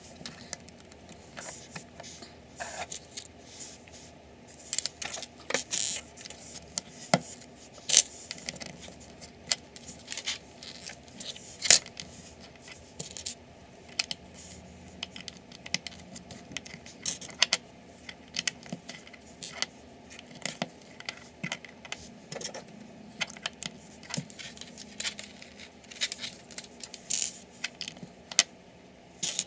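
Small plastic LEGO pieces clicking, rattling and being snapped together by hand, in short irregular clicks scattered throughout.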